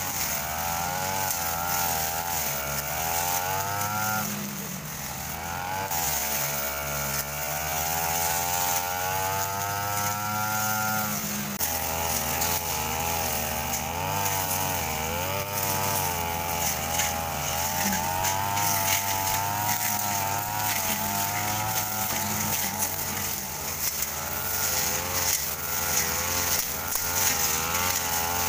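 Backpack brush cutter engines running under load, revving up and easing off as they cut through grass and ferns. About eleven seconds in, one long climb in pitch ends in a sudden drop.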